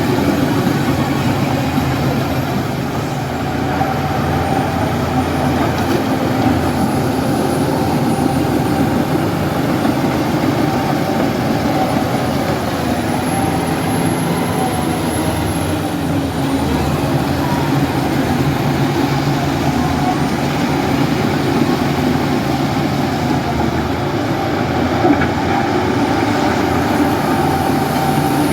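Heavy diesel earthmoving machinery running steadily: an even, low engine drone that doesn't let up.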